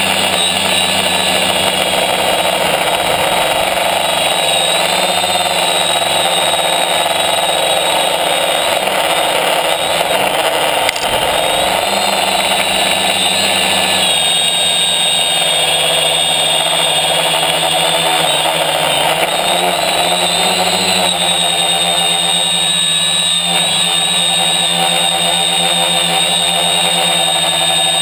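Electric motors and propellers of a tricopter in flight, heard from its onboard camera: a steady multi-tone whine that shifts in pitch a few times as the throttle changes.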